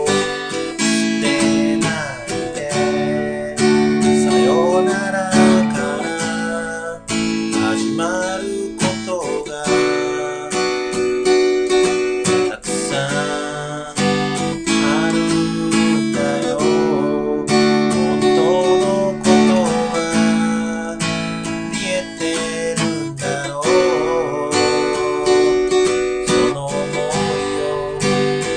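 Acoustic guitar strummed in a steady rhythm with a man singing along.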